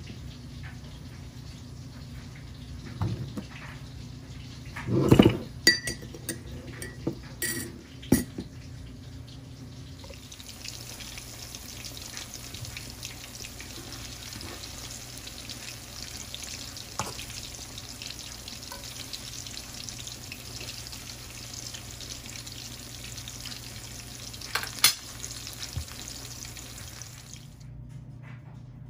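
A metal spoon clinking and knocking against a ceramic mug while sugar is stirred into coffee, a few strikes ringing briefly. Then sliced plantains sizzling steadily in hot oil in a steel wok, with one sharp tap of the spatula near the end.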